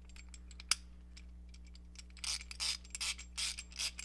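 Small metal clicks as a spinner adapter and socket are fitted on a ratchet. Then, a little past halfway, the adapter is spun by hand, giving a run of quick metallic rasps about two or three a second. The adapter's loose fit is pushing the socket off, so its ball detent cannot lock.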